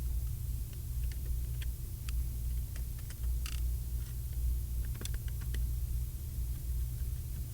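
Scattered light clicks and taps of a Phillips screwdriver and metal parts as the screws holding an ATM card reader are taken out, over a steady low hum.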